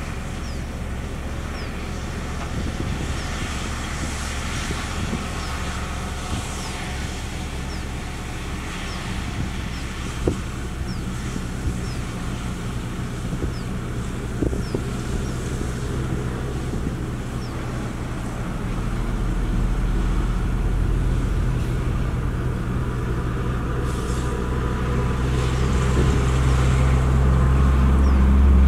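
Heavy diesel engines running steadily: a Shacman dump truck tipping its bed up to dump gravel, and a bulldozer working close by. The low engine hum grows louder over the last ten seconds, with a couple of short knocks along the way.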